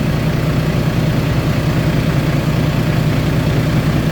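Volvo D13 inline-six truck diesel idling steadily while a cylinder balance test runs on the diagnostic tool.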